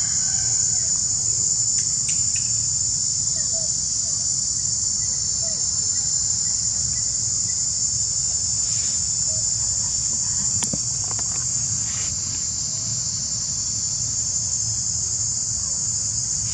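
Steady, high-pitched drone of an insect chorus in forest, unbroken throughout, with a few faint clicks in the second half.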